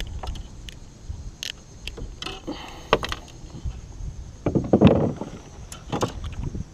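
Scattered knocks, clicks and scrapes against a kayak as the catch and gear are handled, with a louder rustling burst about five seconds in.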